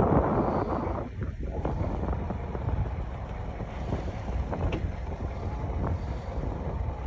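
Wind buffeting the microphone, a rumbling noise that swells and eases unevenly.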